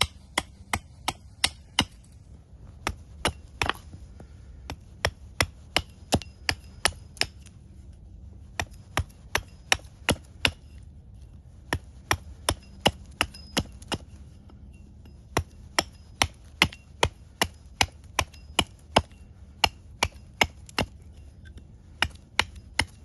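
An axe chopping into wood: sharp strikes, about two to three a second, in runs of several with short pauses between them.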